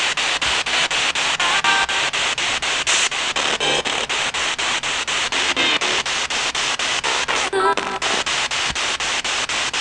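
Spirit box scanning through radio stations: a steady hiss of static chopped about five times a second, with brief fragments of broadcast voices breaking through now and then.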